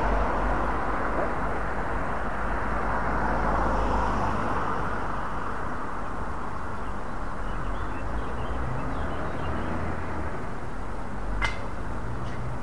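Steady rushing outdoor background noise over a low rumble, with one sharp click near the end.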